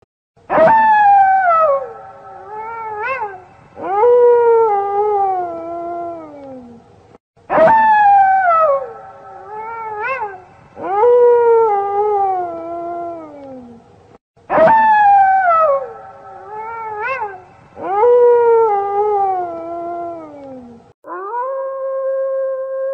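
Wolves howling in chorus, several voices overlapping, each long howl sliding down in pitch, with short rising-and-falling yelps between. The same stretch of howling repeats about every seven seconds, three times, and a steadier, level howl begins near the end.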